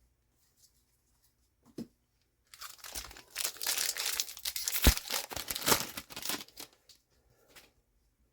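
A trading card booster pack wrapper being torn open and crinkled for about four seconds, with one sharp crackle partway through.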